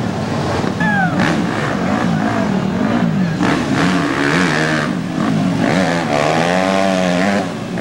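Dirt bike engine revving up and down over and over as the bike spins through mud, the revs swinging about once a second and quicker near the end.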